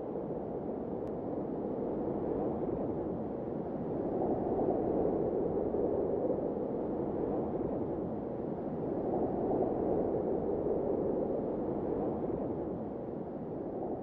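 Soft, steady rushing noise like wind, with no clear pitch. It swells gently twice and begins to fade near the end.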